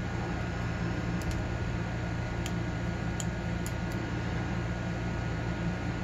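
A handful of faint, light metallic ticks, a lock pick working the pin stacks of an ASSA ABLOY padlock's KIK cylinder, over a steady low hum. The ticks come in the middle seconds.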